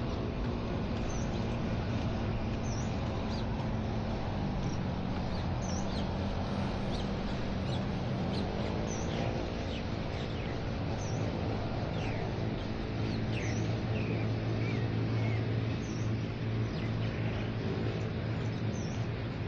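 Small birds chirping, short high chirps every second or so, over a steady low engine hum that shifts a little in pitch about halfway through.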